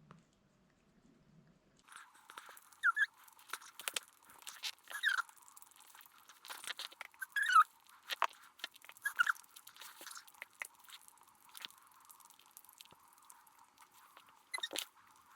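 A cat crunching and chewing food in irregular bites, starting about two seconds in.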